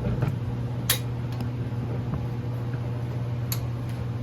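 Steady low hum under a few light metal clicks and taps from tools and small parts being handled during an engine tear-down; the sharpest click comes about a second in.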